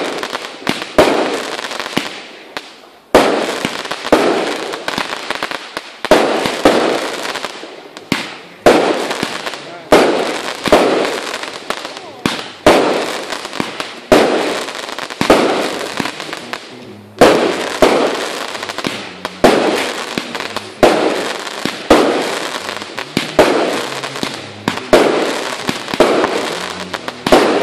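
Fireworks battery firing shot after shot, about one a second, each a sharp bang that fades away before the next.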